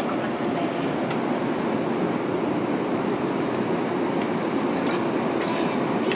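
Steady cabin noise of an airliner in flight: engine and airflow noise heard from a passenger seat, an even hum that does not change.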